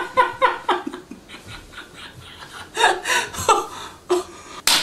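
Two men laughing: a run of quick, rhythmic laughs that dies down after about a second, then breaks out again in short bursts, with one sharp, loud burst near the end.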